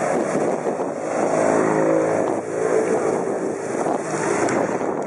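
Wind buffeting the microphone of a bicycle-mounted camera, with the engine of a passing small motor vehicle running steadily for a couple of seconds in the middle.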